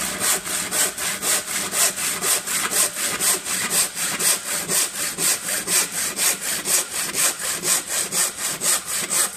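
Hand saw cutting down through a wooden board, steady back-and-forth rasping in a quick, even rhythm of short strokes.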